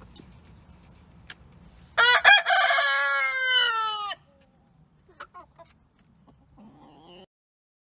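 A rooster crowing once, a loud cock-a-doodle-doo about two seconds long starting about two seconds in, its pitch falling at the end.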